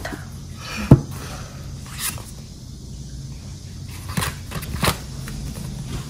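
Hands handling a paperback book on a table: one sharp knock about a second in, then a few lighter taps and scrapes of hands on the cover.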